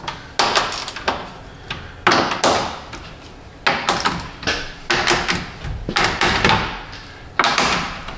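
Quarter-inch impact run in about a dozen short bursts, snugging the mounting bolts of the active grille shutter assembly one after another to check that none are loose.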